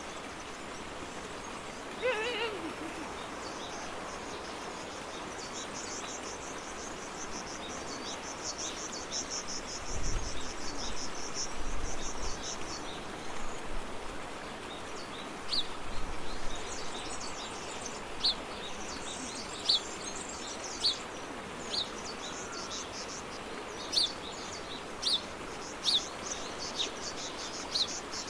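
Birds singing outdoors over a steady background hiss: a fast, high trill for several seconds, then short high chirps repeated about once a second in the second half. A few low thuds come around the middle.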